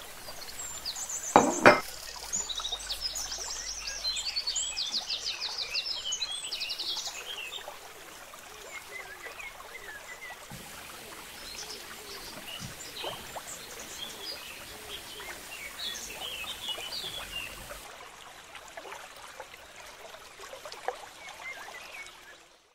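Small birds chirping and trilling repeatedly in the background over a steady hiss, with two sharp knocks about a second and a half in.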